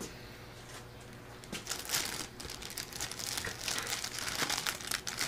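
Plastic wrapping around a gallon jug of way oil crinkling as it is handled, starting about a second and a half in and going on in irregular crackles.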